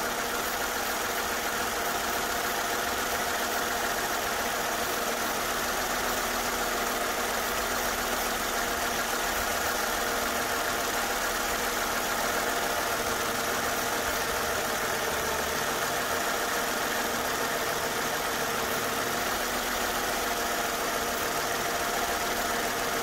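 Mercedes M112 3.2-litre V6 idling steadily. The idle speed holds unchanged while contact cleaner is sprayed over the vacuum lines, showing no vacuum leak.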